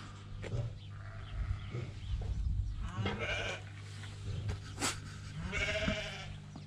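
A large flock of sheep bleating, with a few loud bleats standing out over fainter ones, the longest near the end.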